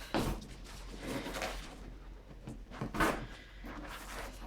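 Light handling noises: a soft knock near the start and another about three seconds in, with faint rustling between them.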